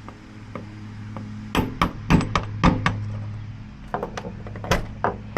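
Sharp metallic clicks and knocks of a locksmith's tools working a vehicle's lock, in two quick clusters, over a steady low hum.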